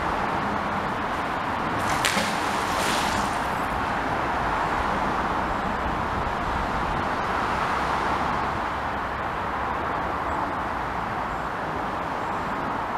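Steady hum of road traffic crossing the concrete road bridge overhead. About two and three seconds in, two brief whooshes as a magnet on a rope is cast out into the canal.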